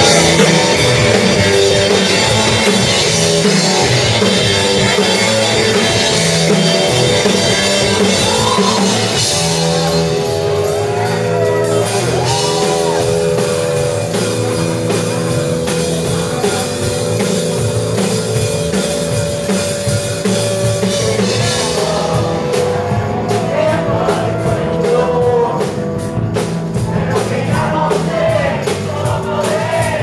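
Rock band playing live and loud: electric guitars and bass over a driving drum kit, with a lead vocal singing over it.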